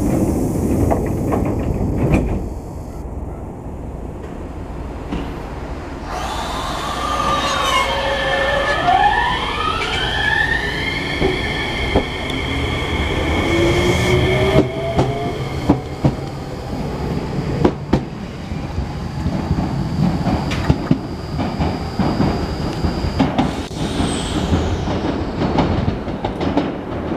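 Enshu Railway electric train pulling out: the traction motors' whine rises in pitch as several tones together, then levels off. Then the wheels clack over rail joints as the cars pass, with a brief high wheel squeal near the end.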